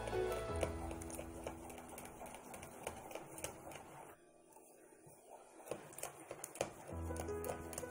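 A whisk clicking and scraping quickly against a glass bowl as egg-and-sugar cake batter is beaten by hand. Background music fades out in the first second and comes back near the end.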